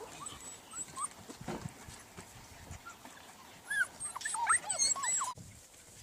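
A litter of golden retriever puppies whimpering and yipping. A few faint high whines come first, then many overlapping high-pitched whimpers about four seconds in, which stop abruptly near the end.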